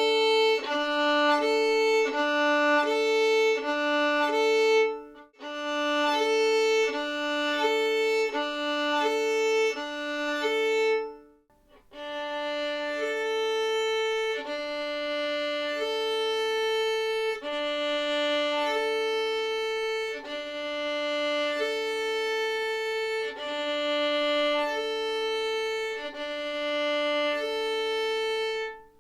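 A solo violin bowed back and forth between the open D and open A strings, played as smooth, connected 'analog' string crossings. The crossings are meant to keep the open strings from ringing out and to avoid scratchy noises. The crossings come quickly in the first part and more slowly after about twelve seconds, with short breaks near five and eleven seconds.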